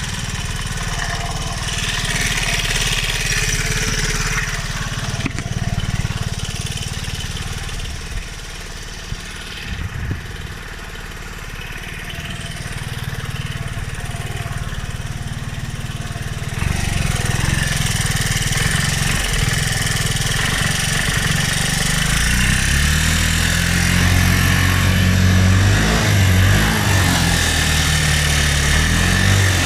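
Piaggio X9 125 scooter's single-cylinder four-stroke engine running steadily, louder from about halfway, with pitch rising and falling near the end as it is revved. Its noise is in question after a cylinder head gasket change: the owner wonders whether something, such as the timing, has been left out of adjustment.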